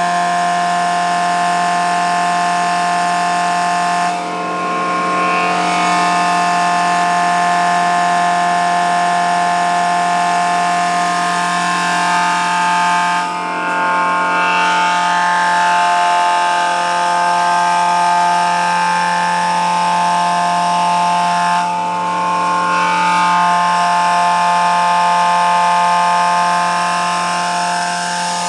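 Truck-mounted mobile feed mill running: steady machine noise with several held whining tones, dipping briefly three times.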